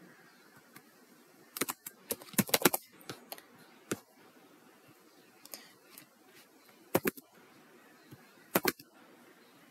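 Computer keyboard typing: short clusters of keystrokes with pauses in between, a quick run of several keys early on, then a few isolated clicks and two pairs of clicks later.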